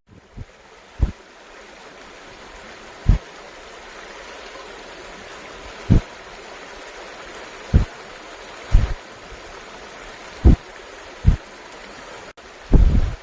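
Stream running steadily, with short, dull low thumps every second or two.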